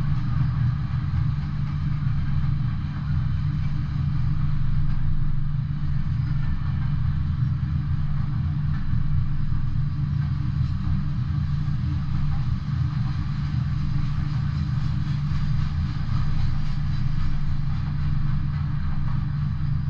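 Freight train rolling past: a steady, continuous rumble of freight cars on the rails, deepest in the low range, with no horn or sudden sounds.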